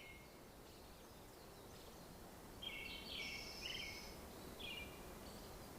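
Faint outdoor ambience with birds chirping: a quick run of chirps about two and a half seconds in and a shorter one near the end.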